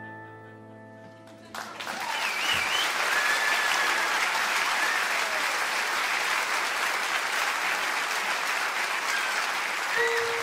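The last piano chord of a song dies away, then audience applause breaks out about a second and a half in and carries on steadily, with a few whistles over it.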